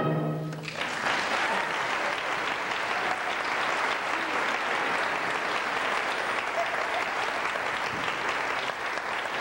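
A held orchestral chord ends under a second in, then a theatre audience applauds steadily.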